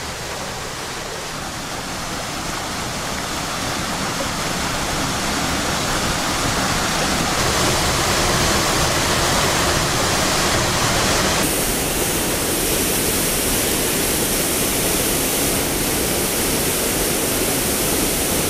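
A waterfall rushing steadily into a rocky pool, a dense even roar of falling water that grows louder over the first few seconds and changes tone abruptly about seven and eleven seconds in.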